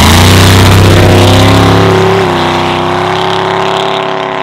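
V8 drag car launching and accelerating hard down the strip. The engine note climbs, drops at a gear change about two seconds in, then climbs again while it fades as the car pulls away.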